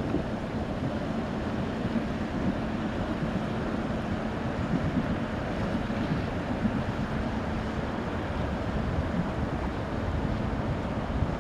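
Steady low rumble of the self-unloading lake freighter Saginaw passing, with a faint even hum through it, mixed with wind buffeting the microphone.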